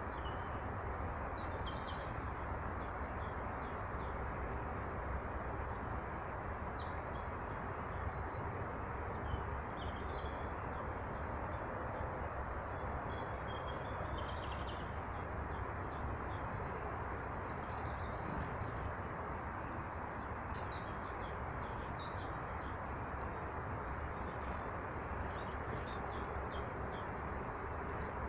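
Small birds chirping in quick runs of short high notes, repeated every few seconds over a steady rushing background noise.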